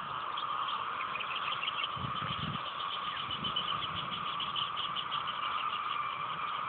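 Outdoor ambience: a steady hiss with a rapid run of high chirps through the middle, and a few soft low thumps.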